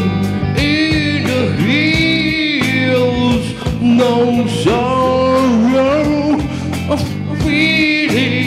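A man singing into a handheld microphone, holding and bending long notes, over amplified backing music with a steady beat.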